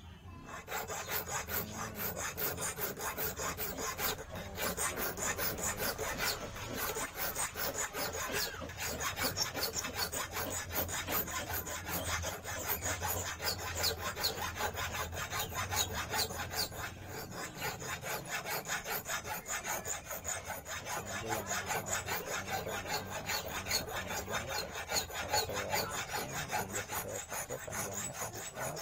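Small hand file scraping back and forth over the tip of a clamped wire in quick, steady strokes, filing the point of an eel fishing hook.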